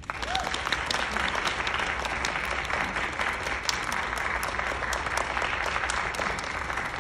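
Audience applause: many people clapping together. It breaks out at once and holds steady.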